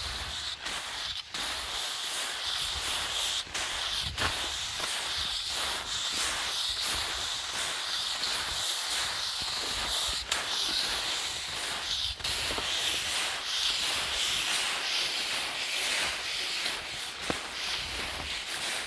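Footsteps crunching and scraping through packed snow, an irregular run of short strokes over a steady hiss.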